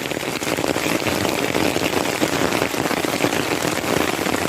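Steady rain falling, an even dense hiss with no break.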